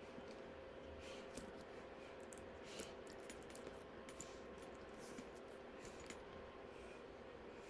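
Faint, scattered light clicks and handling noise from a handbag being handled, its small metal hardware clicking, over a steady low hum.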